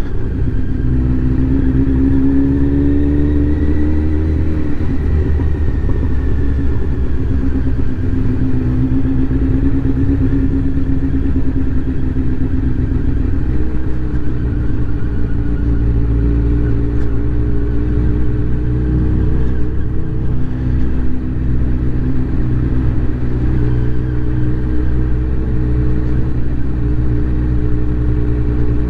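Motorcycle engine breathing through an aftermarket Akrapovic exhaust, riding at low speed. The note rises and eases as the throttle is opened and rolled off, over a steady low rumble.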